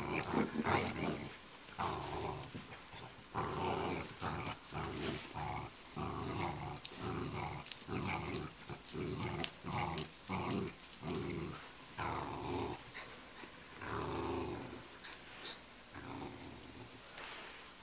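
Cocker spaniel play-growling in short, rapid bursts, about two a second, while tugging on a rope toy; the growls thin out near the end.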